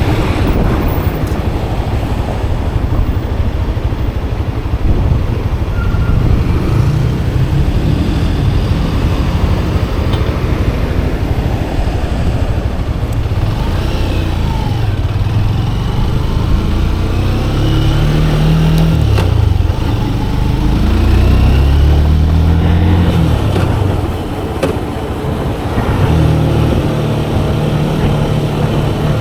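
Motorcycle engine running under way with a heavy wind rumble, its pitch rising and falling several times midway through as the throttle opens and closes through gear changes.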